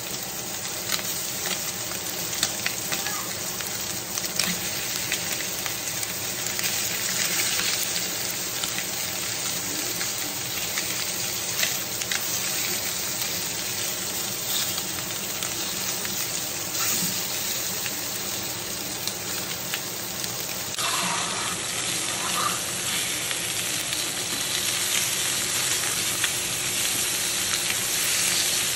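Seasoned chicken drumsticks searing in hot olive oil in a stainless steel skillet: a steady sizzle with scattered crackles, browning the outside of the meat.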